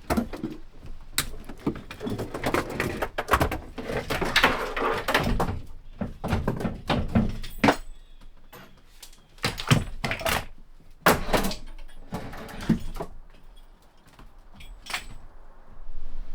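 Irregular knocks, clunks and rattles of hard objects being handled and set down, with rustling between them. The knocks are busiest in the first half and sparser after about eight seconds.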